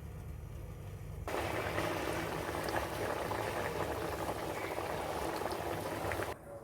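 A pot of curry boiling on the stove, with a dense, steady bubbling and spitting. It starts suddenly about a second in and cuts off sharply near the end, over a low background hum.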